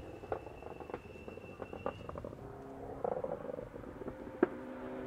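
A rally car's engine heard at a distance, with sharp cracks and pops and a thin steady whine that fades out about two seconds in. A steady engine note builds from about halfway, and the loudest crack comes near the end.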